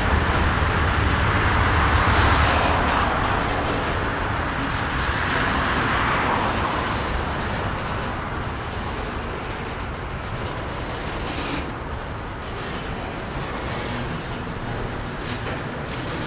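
Double-stack intermodal container well cars rolling past: a steady rumble and hiss of steel wheels on rail that eases off slightly over the seconds.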